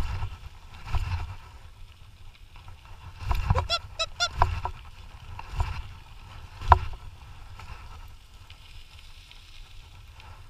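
Dog scooter rolling over a rough trail behind two pulling dogs, a steady low rumble of the wheels. A few seconds in comes a quick run of short, high yelping calls, and later a single sharp knock.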